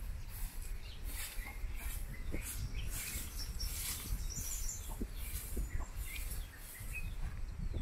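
Short hand broom swept across bare dirt ground in repeated swishing strokes, about two a second. Birds chirp in the background.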